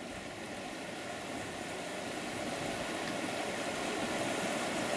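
Rushing water of a shallow, rocky mountain river running over small rapids, a steady noise that grows gradually louder.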